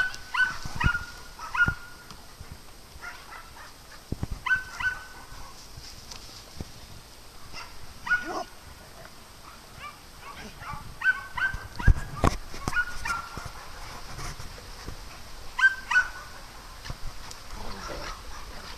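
Dogs barking and yipping during rough play, in short clusters of sharp, high barks every few seconds. A few low thumps come between them, the loudest about twelve seconds in.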